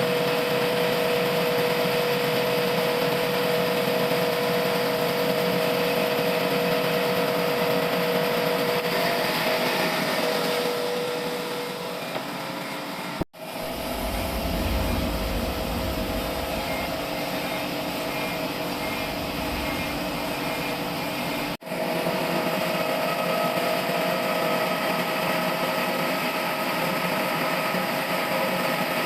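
Sawmill machine running with a steady mechanical hum, broken by two sudden short dropouts, a little before halfway and about three quarters through, each followed by a change in the sound, with a deeper rumble between them.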